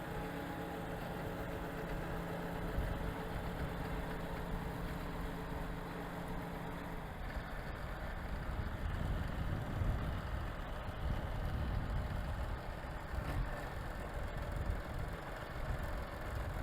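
Tractor engine running steadily, then about seven seconds in the even tone gives way to a rougher, lower rumble as it works across rough, boggy ground.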